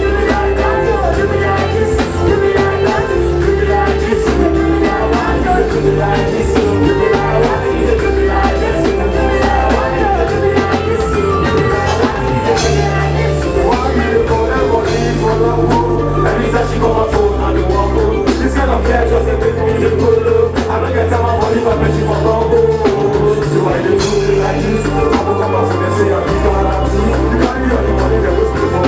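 Music with a deep bass line and a singing voice.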